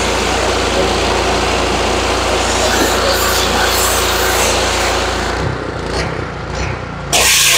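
Gas pressure washer engine running steadily with the hiss of its high-pressure water spray blasting a mower deck. About five and a half seconds in the spray stops and the engine note wavers, then the spray hiss starts again loudly just before the end.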